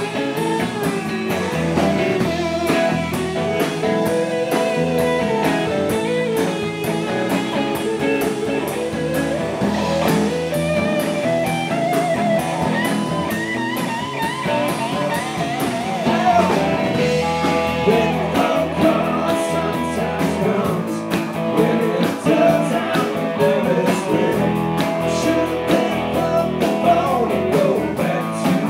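Live blues-rock band playing an instrumental passage on electric guitars and bass, with a lead line of bent, wavering guitar notes.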